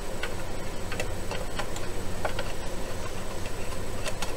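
A hand tool scraping and clicking against a small sheet-metal can, picking dried rubbing compound out of its holes, in irregular sharp ticks a few tenths of a second apart. A steady low hum runs underneath.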